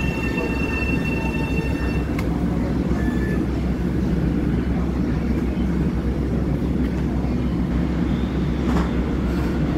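M7 electric train coming to a stop: a steady high electric whine from its drive equipment cuts off about two seconds in, leaving the steady low rumble of the standing train.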